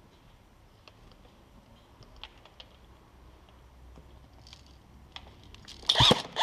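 Light scattered clicks and scuffs of footsteps and gear moving over a debris-strewn floor, then a sudden loud burst near the end.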